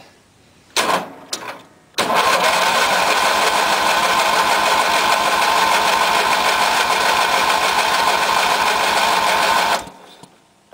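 Electric starter cranking a 16 HP Briggs & Stratton horizontally opposed twin for about eight seconds without the engine catching, then stopping. This is a cold first start after storage on full choke, and the long crank is probably from a carburetor emptied of fuel.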